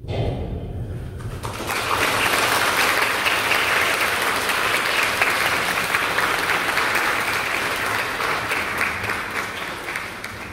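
Audience applauding: the clapping starts suddenly, swells to full strength within about two seconds, and thins out near the end.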